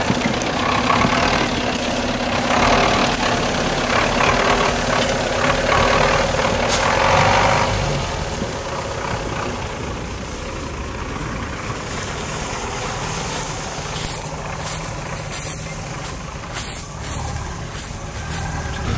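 GAZ-66 off-road truck's engine working hard as the truck churns through snow and mud, then running quieter and lower for the second half as the truck pulls away.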